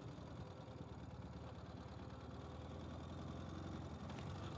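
Ural sidecar motorcycle's air-cooled flat-twin engine running steadily at low revs.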